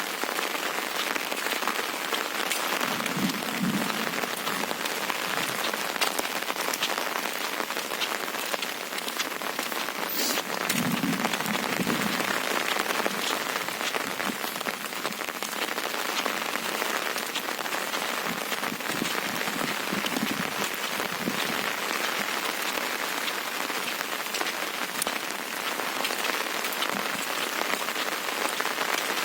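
Windstorm noise: a steady, dense hiss, with low gusts buffeting the microphone a few seconds in, around eleven seconds and around twenty seconds.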